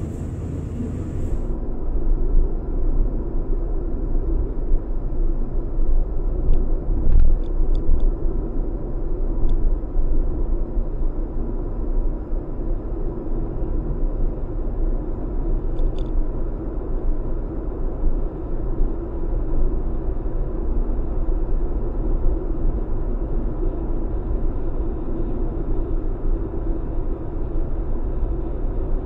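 Steady road and engine rumble inside a moving Acura RSX's cabin, as recorded by the mirror dash cam's built-in microphone, with a faint steady high whine. A few light ticks come around seven seconds in and again near the middle.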